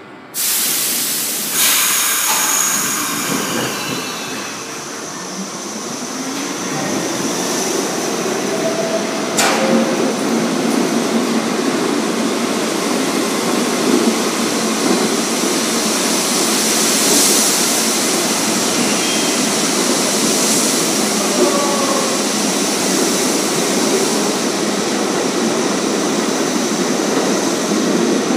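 New York City subway train on the IRT 7th Avenue Line pulling out of the station. It starts suddenly, then its motors whine up in pitch as it gathers speed. A steady rumble and wheel noise follow as the cars pass close by, with one sharp clack about nine seconds in.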